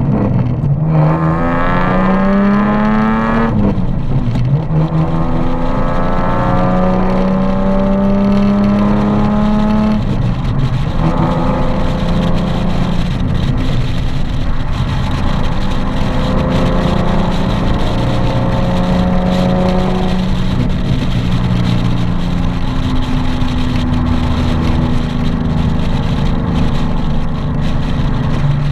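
Nissan 370Z's 3.7-litre V6 engine and exhaust under way: the engine note climbs for a few seconds, drops sharply as it shifts, then runs at a steady, slowly rising pitch, changing again a couple of times.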